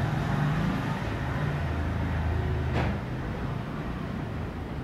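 Urban street ambience: a steady low rumble of nearby vehicle traffic, with one short click about three seconds in.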